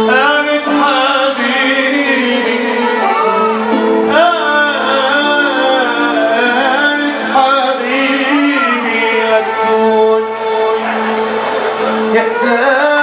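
A man singing an ornamented Arabic vocal line into a microphone, his pitch bending and wavering, over a keyboard holding steady chords, all amplified through PA speakers.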